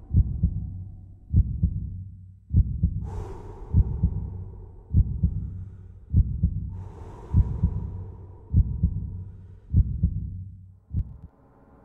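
Heartbeat sound effect in a dramatic soundtrack: a deep double thump, lub-dub, about once every 1.2 seconds, with two airy whooshes swelling up in between. The beat stops near the end as a sustained synth tone fades in.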